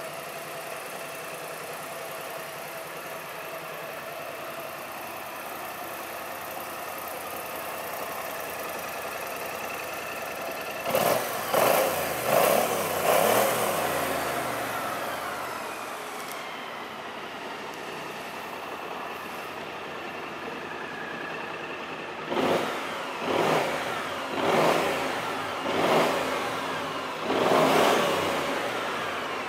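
BMW C650GT maxi-scooter's 647 cc parallel-twin engine idling steadily, then blipped four times in quick succession about eleven seconds in. Near the end it is revved five more times, each rev rising and falling in pitch before it drops back to idle.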